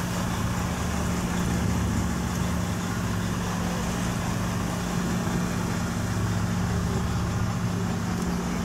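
Boat's engine running steadily, a constant low hum and rumble.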